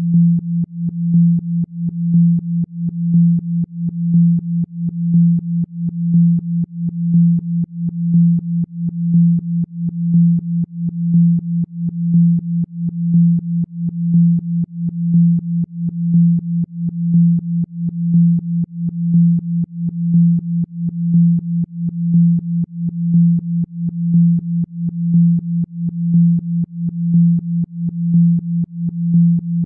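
A single low, steady electronic tone, a 'Rife frequency' healing tone for the spine, that swells and fades in loudness about once a second.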